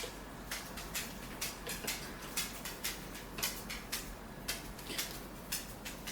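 Close-miked eating of instant kimchi ramen: irregular wet mouth clicks and smacks of chewing noodles, two or three a second.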